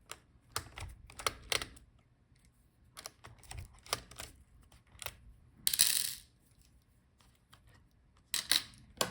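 Scattered small clicks and taps from working inside an opened Dell Precision 5560 laptop while the display's video cable is being disconnected from the motherboard, with a brief noisy rustle about six seconds in and a few sharper clicks near the end.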